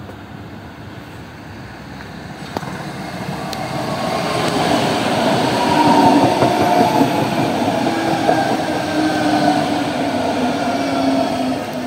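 Calgary CTrain Siemens S200 light rail train pulling into a station. Its rumble grows louder over the first half as it comes alongside. Then a whine falls slowly in pitch as the train brakes to a stop.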